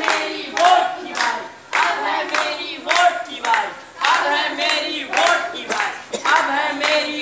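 A group of voices singing together in unison, with sharp hand claps keeping a steady beat about twice a second.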